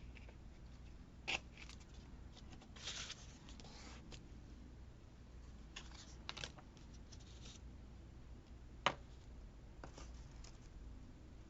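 Quiet crafting sounds of washi tape and paper being handled on a planner: a few sharp taps and clicks, the loudest about nine seconds in, with short rustles of paper or tape in between.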